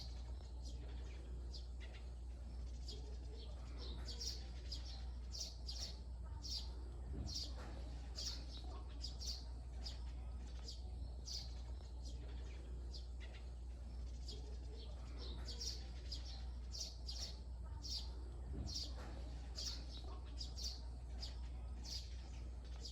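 Small birds chirping: short, high chirps repeating about once or twice a second, over a steady low hum.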